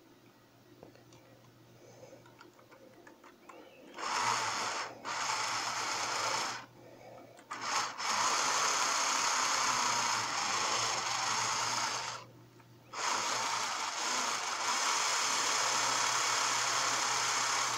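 Electric motor and gear train of a Piko HO-scale BR 80 steam locomotive model running on test rails with gears just greased: a steady mechanical whirr that starts about four seconds in and runs in three spells with two short stops between.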